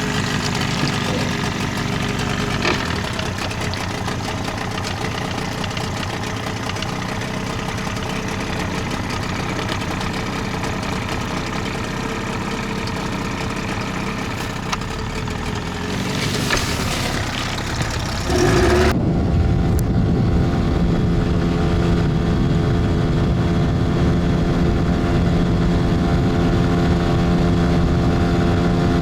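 Motorboat's outboard engine running steadily, with a noisy wash over it. About two-thirds of the way through the sound changes abruptly to a louder, more even engine hum.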